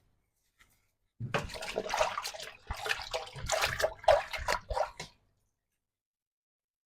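Soapy water sloshing and splashing as dirty clothes are pushed down into a washing machine tub, lasting about four seconds and then breaking off suddenly.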